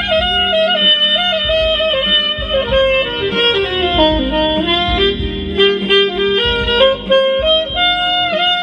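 Soprano saxophone playing a melody. The line steps down about an octave to a low point around four seconds in, then climbs back up.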